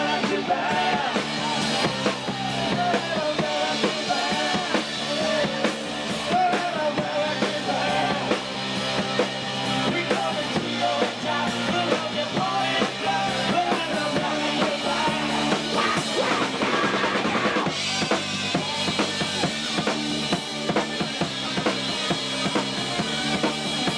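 Rock band playing live, the drum kit prominent with bass drum and snare hits over sustained bass notes and wavering guitar or vocal lines; the cymbals and top end grow brighter about 18 seconds in.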